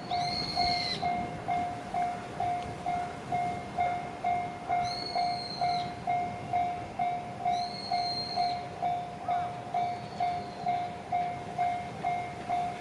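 Japanese railway level-crossing warning bell ringing at a steady pace of about two strikes a second. A high, whistle-like tone sounds four times over it, each lasting about a second.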